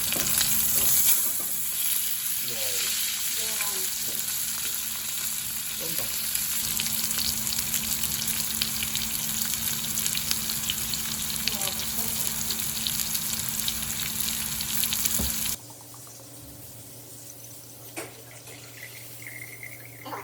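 Meat sizzling as it fries in a pan: a dense, even crackling hiss over a steady low hum. About fifteen seconds in, it cuts off suddenly to a much quieter room.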